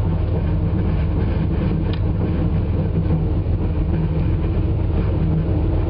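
Airboat engine and propeller running steadily under way, a loud, deep drone that holds an even pitch.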